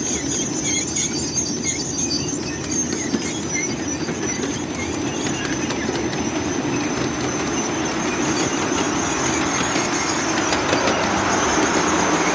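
Train brakes squealing as a coal-fired live-steam scale model of a PRR N2sa locomotive and its cars roll downhill. A steady high squeal with short chirps runs over the rumble of wheels on rail, and the rolling noise grows louder in the second half.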